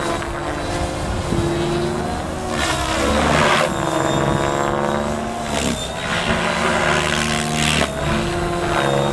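Mikado Logo 600 electric radio-controlled helicopter on a 12-cell battery in flight: a steady motor and rotor whine, with rushing blade noise surging several times, loudest about three seconds in.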